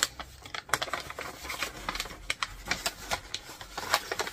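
Tissue paper rustling and crinkling as hands unfold wrapping in a box: a quick, irregular crackle of many small sharp clicks.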